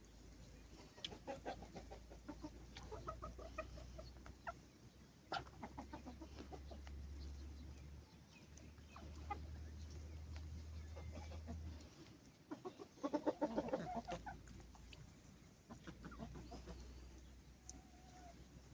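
Chickens clucking in several short runs of calls, the loudest run about thirteen seconds in, over a steady low rumble.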